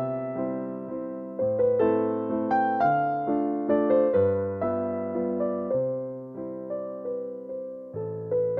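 Background music: a gentle keyboard piece, a slow melody of struck notes that each fade away, over low chords that change every second or two.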